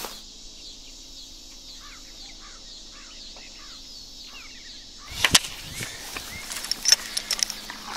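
Faint short bird chirps over a steady outdoor hiss, then, about five seconds in, a sharp crackle followed by a run of clicks and rustles from a sheet of paper being handled.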